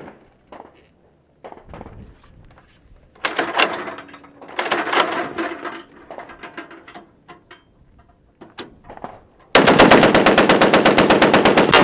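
Metal clicking and rattling as the belt of .50 caliber cartridges is handled at the gun. About nine and a half seconds in, the M2 .50 caliber heavy machine gun opens up in a rapid, even burst of automatic fire, the loudest sound here.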